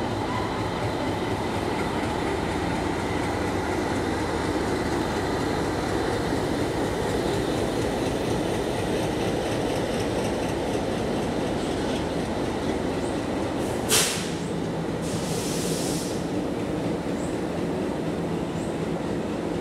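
Indian Railways passenger train moving along the platform, a steady rumble of wheels on rail. About two-thirds of the way through comes a single sharp clack, followed by a short hiss.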